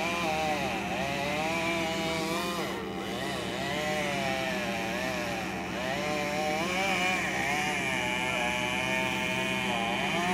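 Chainsaw running under load while cutting into a tree, its engine pitch wavering up and down every second or so.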